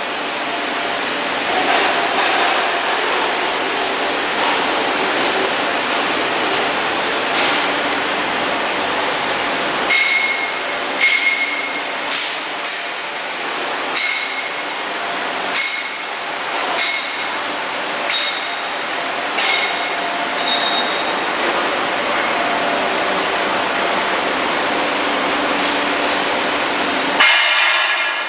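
Machinery running with a steady noise and a light hum. Between about ten and twenty-one seconds in come a dozen short, ringing metallic clinks about a second apart, and a louder clatter follows near the end.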